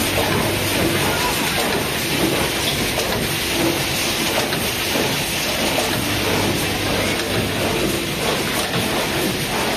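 High-speed spout pouch welding and sealing machine running: a steady, dense clatter and hiss of mechanical parts at work over a low hum.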